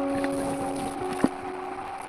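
Background music with long held notes over a hiss-like haze, and one sharp knock about a second and a quarter in.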